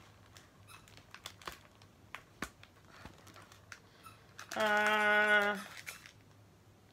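Paper pages and plastic sheet protectors being handled and leafed through, with light rustling and scattered small clicks. A little past the middle, a woman's voice hums a steady 'hmm' for about a second.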